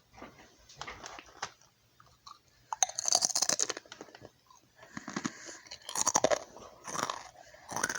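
Someone crunching and chewing potato chips close to the microphone: a string of irregular crisp crunches, loudest about three seconds in and again a couple of seconds later.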